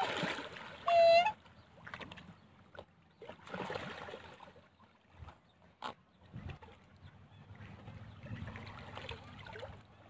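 Black swans and coots splashing and paddling in shallow lake water, in soft spells, with a few sharp clicks. About a second in, a short, loud, high bird call rings out once.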